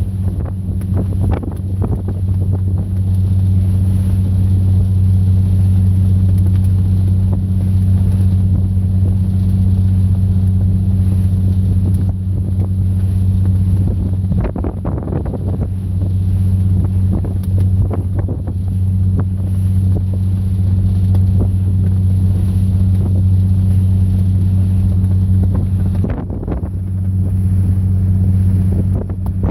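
A fishing boat's engine running steadily under way, heard on board as a loud low drone, with wind gusting on the microphone. The drone eases briefly near the end.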